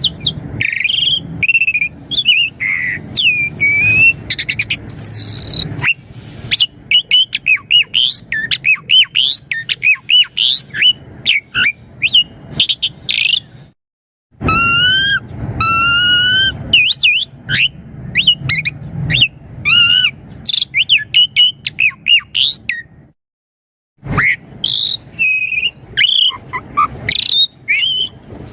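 Pied starling (jalak suren) singing a long, loud, varied song of chirps, whistles, warbles and clicks, including a run of rising whistles about halfway through. The song breaks off for two short moments, near the middle and a few seconds before the end.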